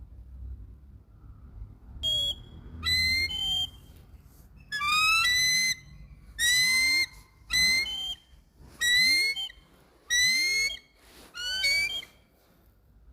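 A kite's shrill whistling calls, about eight in quick succession starting about two seconds in, each a wavering high note with a sliding tail.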